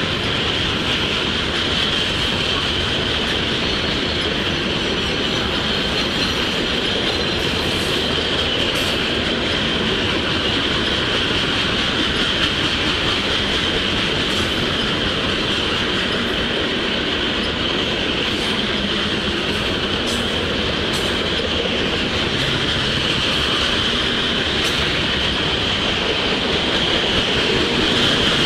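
Freight train gondola cars rolling past at steady speed: a continuous rumble of steel wheels on rail with a steady high ring over it and a few sharp clicks.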